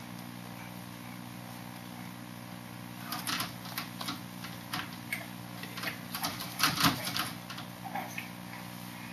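Irregular light taps and clicks, about a dozen over several seconds, as a baby's hands pat and knock on the white slats he is holding onto, over a steady low hum.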